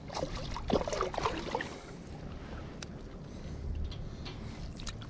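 Water splashing beside a kayak as a hooked crappie is reeled in and brought to the landing net, busiest in the first second and a half, then steadier lapping.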